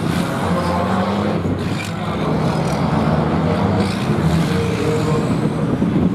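Dakar rally truck's diesel engine running under load as it drives over a mound on a dirt track, its pitch rising and falling.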